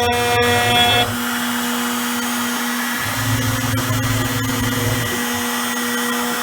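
Small CNC router's spindle milling 3/16-inch aluminium plate: a steady machine whine with a few light ticks near the start. Its tone changes about a second in, and a lower hum joins between about three and five seconds in.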